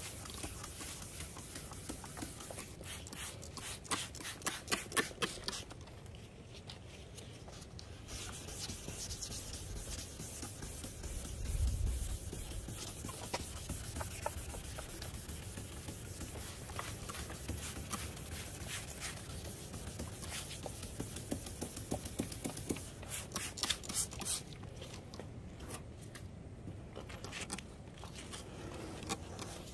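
Back-and-forth rubbing strokes on a plastic headlight lens, in quick runs of several strokes with steadier rubbing between them.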